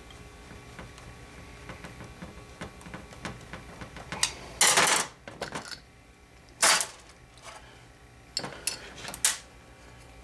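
Parts of a small outboard carburetor and a screwdriver clinking and clacking on a metal workbench as the carburetor is taken apart to clear a plugged fuel passage. Light ticks at first, then several short, sharp clacks from about four seconds in.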